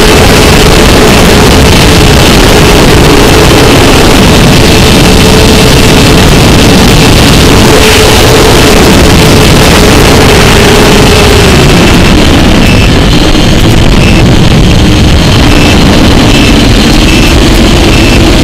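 Loud, continuous rushing of airflow buffeting the onboard camera microphone of a model aircraft in fast flight, with a steady hum underneath that drops in pitch about eleven seconds in.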